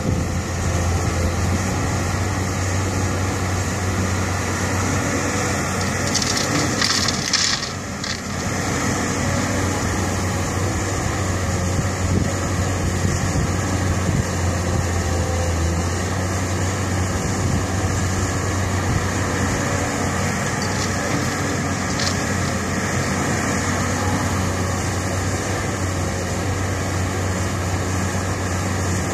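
Caterpillar 320C excavator's diesel engine running steadily with a constant low hum. About six seconds in comes a brief noisy rush lasting a couple of seconds.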